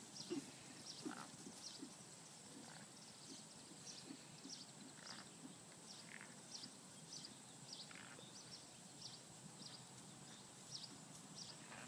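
Faint, muffled hoofbeats of a ridden horse on grass, clearest in the first second as it passes close, then fading to barely audible as it moves off across the field. Faint high ticks run through the background.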